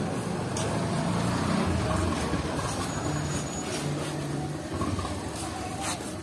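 A motor vehicle's engine running close by, a steady low rumble that swells in the first couple of seconds and then eases off. A few faint knife chops on a wooden block are heard under it.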